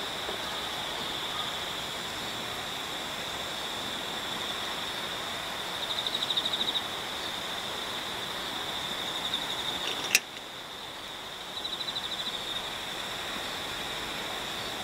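Steady high-pitched insect trilling with a fast pulse, growing louder for about a second around six seconds in and again around twelve seconds in. There is a single sharp click about ten seconds in.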